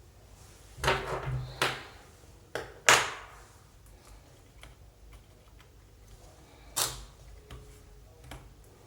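Hard parts being handled: several sharp clicks and knocks, the loudest about a second in, at about three seconds and near seven seconds, with fainter ticks between.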